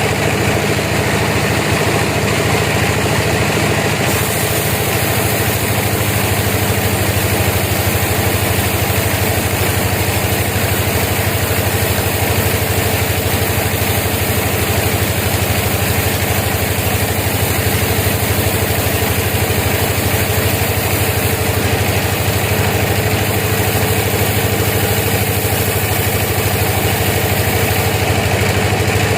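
A sawmill's engine running steadily at an even pitch.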